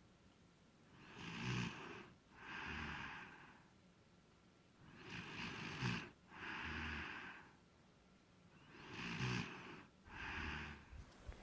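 A sleeping person snoring: three slow breaths about four seconds apart, each a snore with a low buzz on the in-breath, followed by a slightly softer, breathy out-breath.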